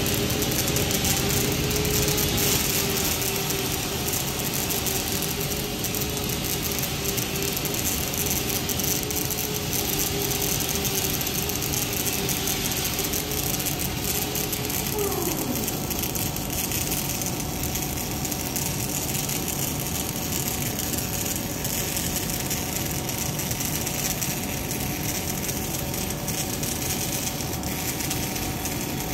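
Dual-torch automatic pulsed gas metal arc welding on steel pipe: the arcs crackle and hiss steadily over a low steady hum. About halfway through, one of the steady tones slides down in pitch.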